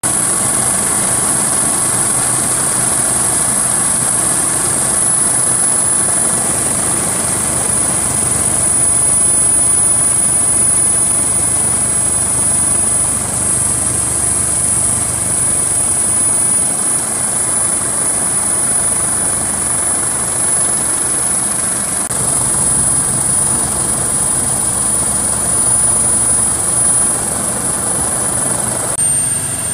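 Steady engine and rotor noise of a Coast Guard MH-65 Dolphin helicopter heard from on board, with a constant high-pitched turbine whine above it. The tone shifts a few times.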